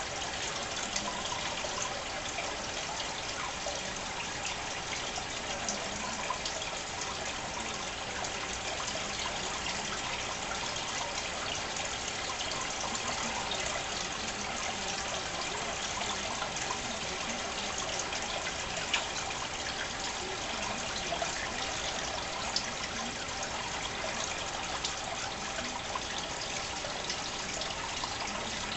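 Steady trickling and splashing of aquarium water, with small scattered ticks.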